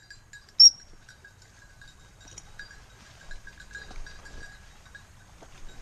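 One short, sharp pip on a high-pitched dog whistle a little over half a second in. It is followed by the faint, intermittent tinkling of a small bell.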